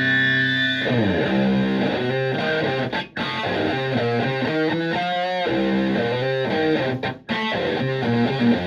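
Stratocaster electric guitar through a Tone Bender MkI fuzz pedal and a Twin Reverb-style amplifier, playing a distorted lead. A held note slides down about a second in, then single notes follow, with a wavering bent note near the middle. The playing stops briefly twice.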